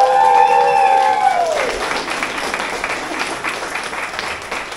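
A group of people cheering with a long shout, held for about a second and a half before it drops away, then clapping and applauding.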